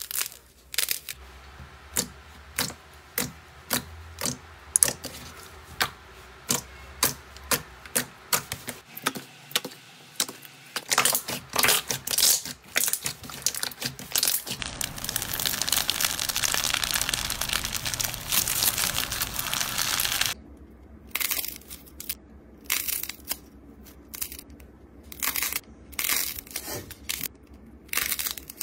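Slime and soft clay being squeezed and kneaded by hand, giving a run of sharp sticky pops and clicks about once a second. About halfway through comes several seconds of continuous crackling squish, and then the pops return.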